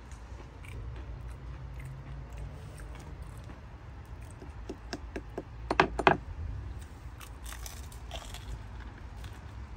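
Crunching bites into crispy fried chicken, a run of sharp crunches about five to six seconds in with the loudest pair near six seconds, then a few fainter crackles, over a low steady background rumble.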